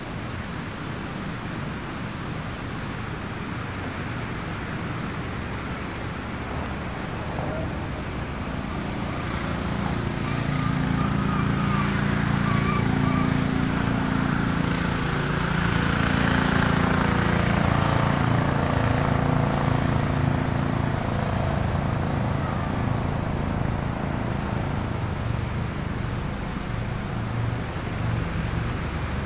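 A motor vehicle's engine slowly drawing near and passing, loudest in the middle, over a steady rush of wind and road noise.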